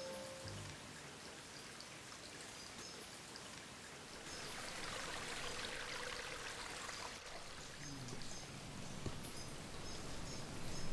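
A shallow forest stream trickling, at its fullest about halfway through, over a quiet woodland background with faint high chirps now and then.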